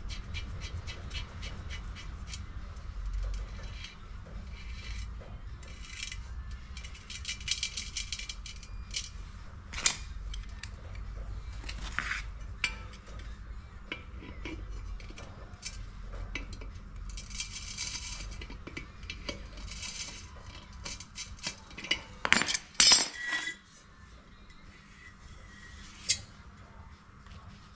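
Metal clinking and scraping of a brass fitting being fastened through the wall of a red steel cylinder with water pump pliers, with stretches of rapid metallic clicking. A few louder metal clanks come about three quarters of the way through.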